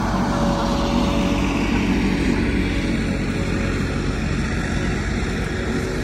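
Steady low drone of a compact loader's engine, with a faint steady whine over the first couple of seconds.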